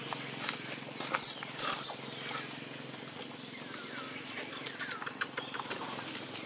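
Dry leaves crackling and rustling as a macaque shifts and walks over leaf litter. There are a few sharp crackles about a second in and a quicker, irregular run of them about five seconds in.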